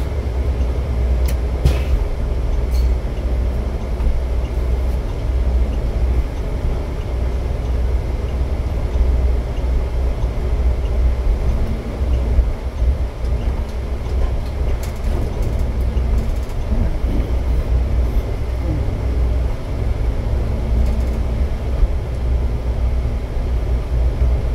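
Steady low rumble of road and engine noise inside a car driving along city streets.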